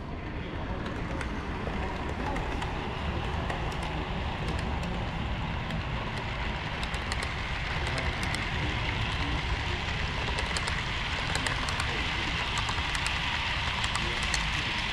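HO scale model train running on layout track: a steady rumble with many small ticks, growing slightly louder toward the end.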